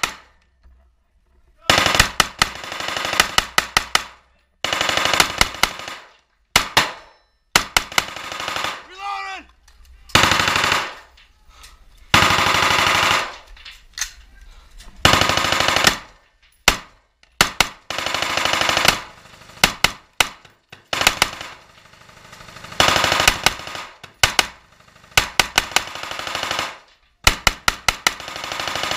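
Live small-arms fire at close range: rifle shots from the shooter's own carbine, mixed with repeated bursts of automatic fire about one to two seconds long, a dozen or so in all, with short pauses between them.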